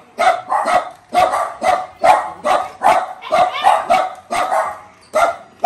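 A small dog yapping over and over in a steady run of short, high-pitched barks, about three a second.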